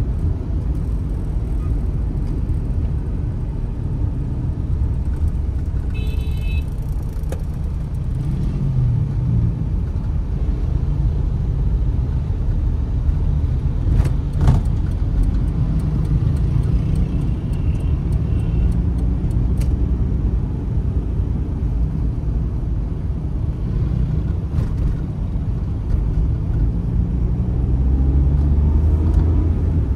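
Suzuki Mehran's 800cc three-cylinder engine and tyre noise heard from inside the cabin while driving, a steady low rumble. A brief high beep comes about six seconds in, and the engine note rises and grows louder near the end as the car accelerates.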